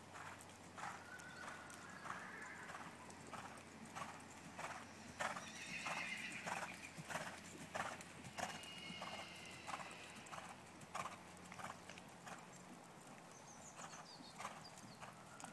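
A ridden horse cantering on a soft arena surface, its hoofbeats falling in a steady stride rhythm. It jumps a fence about halfway through. The hoofbeats thin out and slow near the end as it comes back to a walk.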